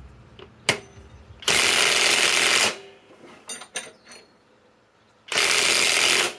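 SKIL PWR CORE 20 mid-torque cordless impact wrench hammering in two bursts of about a second each, driving a lag bolt tight. A brief blip comes just before the first burst, and a few light metallic clicks fall between the two.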